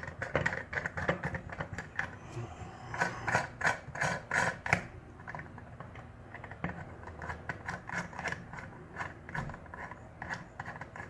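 Small metal clicks and rattles as a dimple cam lock is unscrewed and handled, the clicking busiest a few seconds in and thinning out afterwards.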